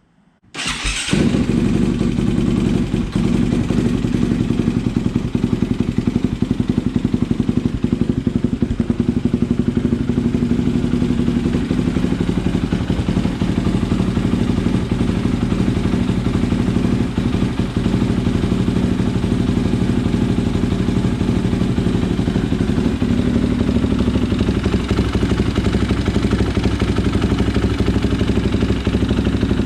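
KTM motorcycle engine starting about half a second in and then idling steadily, on its first run after an oil change as the fresh oil fills the oil filters.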